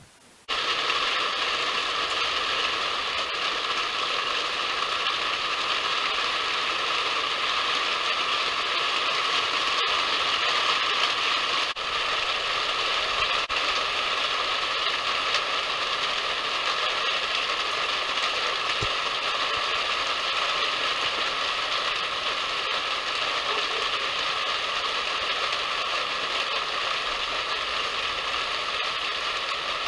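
Steady hiss of rain falling, starting about half a second in and holding even throughout.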